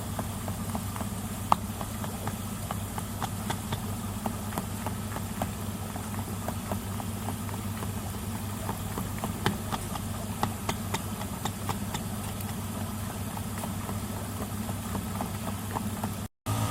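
A steady low mechanical hum, like a small pump or motor running, with many small sharp clicks and ticks scattered through it. The sound drops out briefly near the end.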